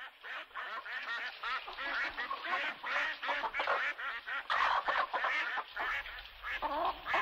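A flock of birds calling at once: many short, overlapping calls in a dense, continuous chatter.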